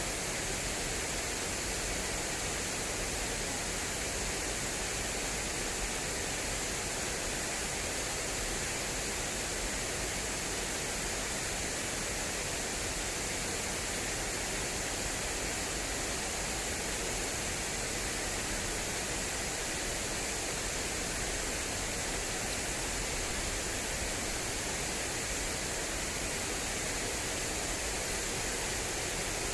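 Fast-flowing water rushing steadily through an irrigation channel, a constant hiss-heavy rush with no changes.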